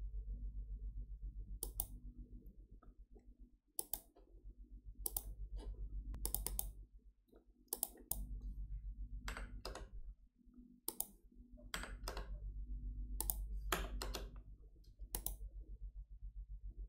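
Computer mouse clicking about a dozen times, some clicks in quick pairs like double-clicks, over a low steady hum.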